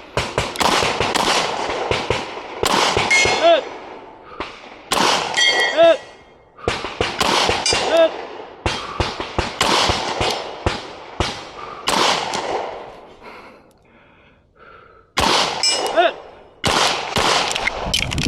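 9mm pistol shots fired in quick strings, with steel plates ringing out in a clear clang after several of the shots, the sound of hits on steel. A short lull comes about two-thirds of the way through before the shooting resumes.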